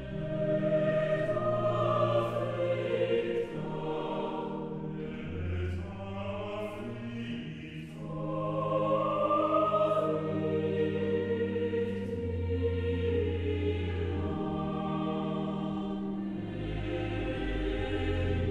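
Choir singing a slow sacred choral setting in Latin, accompanied by the 1902 Mutin pipe organ holding long low bass notes that change every few seconds.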